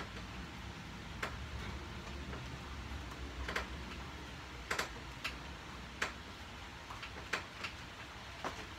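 Light clicks and knocks at uneven intervals, roughly one a second, from a vertical knee-raise station (power tower) being worked through a set of leg raises, over a faint low hum.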